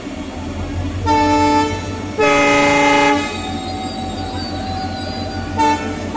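Vande Bharat train's horn sounding: a short blast about a second in, a longer one about two seconds in, and a brief toot near the end, over the low steady rumble of the train rolling past.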